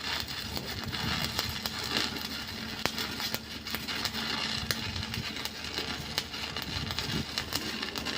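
Stick (SMAW) welding arc crackling steadily, with scattered sharp pops, during the cap pass of a 6G pipe weld.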